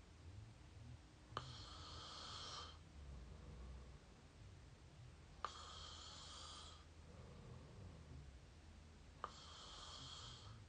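Mouth snoring heard up close: three rasping snoring breaths about four seconds apart. Each opens with a sharp click and lasts just over a second.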